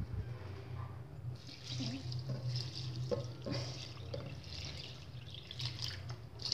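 Liquid poured from a jug onto glutinous rice in an aluminium wok, splashing and trickling as it fills over the rice; the pour starts about a second in.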